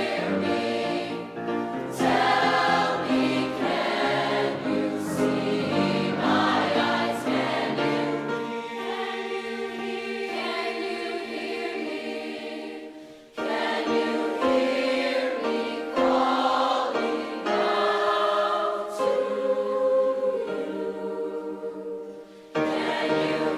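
Large mixed youth choir singing in several parts with piano accompaniment. The voices break off briefly about halfway through and again near the end, re-entering strongly each time.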